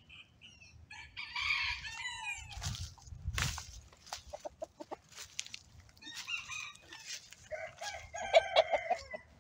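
Chickens calling: a rooster crowing and clucking in a string of separate calls, the loudest near the end. A low rustle and bump about three seconds in.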